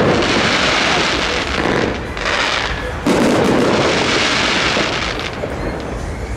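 Aerial firework shells bursting overhead. Each burst opens suddenly and is followed by a long crackle that fades over a couple of seconds, with a fresh burst about three seconds in.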